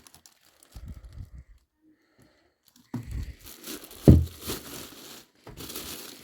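Packaging being pulled off and crinkled as a tool is unwrapped, with a sharp knock about four seconds in.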